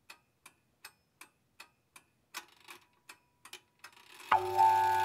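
Even, clock-like ticking, about three ticks a second. About four seconds in, a held, ringing musical tone of several pitches swells up as the music begins.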